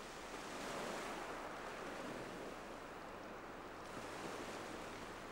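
Faint sea surf: waves washing on the shore in a steady hiss that swells slightly about a second in.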